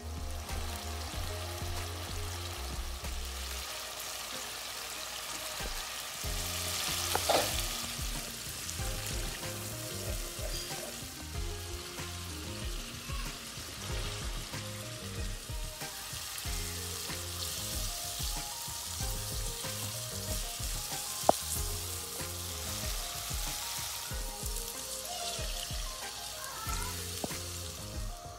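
Spiced tomato-and-onion masala sizzling in a frying pan and being stirred with a wooden spoon, with a louder rush about seven seconds in and a single sharp click around twenty-one seconds. Background music with a steady bass line plays underneath.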